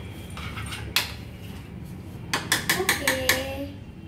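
Spatula stirring a bowl of chopped vegetable mix, clicking and tapping against the bowl: one sharp tap about a second in, then a quick run of about five taps past the middle.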